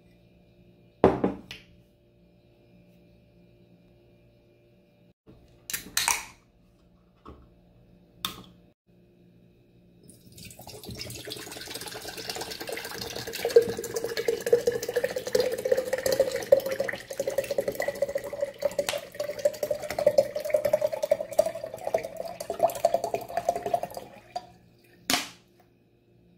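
Water poured in a steady stream into a glass jar holding white grains, the pitch of the filling rising steadily as the jar fills. A few sharp knocks come before the pour and one after it.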